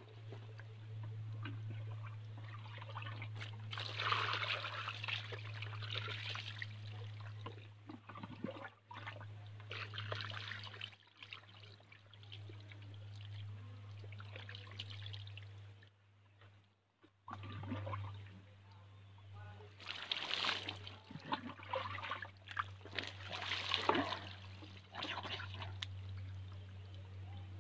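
Water pouring and splashing over someone bathing, in uneven bursts with a short pause about two-thirds of the way through, over a steady low hum.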